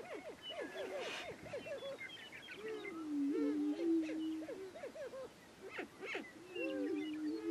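Prairie chickens calling on a lek: many short rising-and-falling cackling calls, with a long held low booming note about three seconds in and another near the end.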